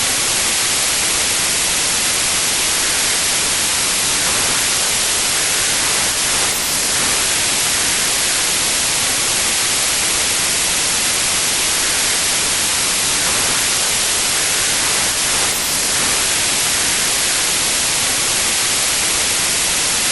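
Steady white noise: an even, unbroken static hiss, brightest in the treble.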